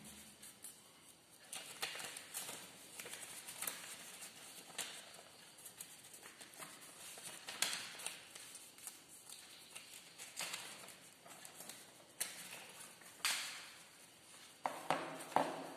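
Sheet of white paper being folded and creased by hand: irregular soft rustles and crinkles with light taps as fingers press the folds, a few louder rustles near the end as the folded sheet is lifted.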